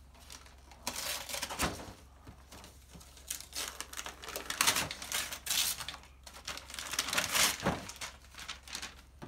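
Gift wrapping paper tearing and crinkling in irregular bursts as a child pulls it off a cardboard toy box.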